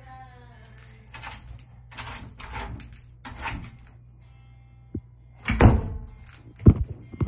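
Phone handling noise close to the microphone: a few short breathy, rustling bursts, then two loud thumps about five and a half and nearly seven seconds in, as the phone is knocked. Faint music fades out at the start.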